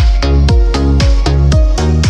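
Background electronic dance music with a steady, fast beat.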